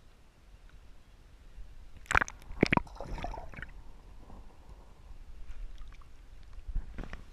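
Two sharp splashes about two seconds in as a caught bass is released into the river and the camera goes under, then muffled bubbling and gurgling heard through the submerged microphone, with a few more splashes near the end as it comes back up.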